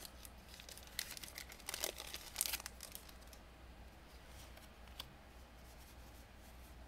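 Foil wrapper of a Pokémon booster pack crinkling and tearing as it is handled, in short bursts during the first few seconds, then a single click about five seconds in and fainter handling.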